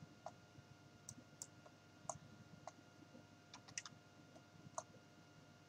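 Faint clicks of a computer mouse and keyboard, about a dozen short sharp clicks at irregular intervals.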